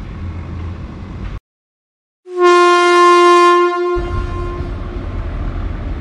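Electric locomotive horn giving one long, loud blast of about two seconds, starting a little over two seconds in as the train approaches. A steady low rumbling noise comes before and after it, broken by a short dead gap just before the horn.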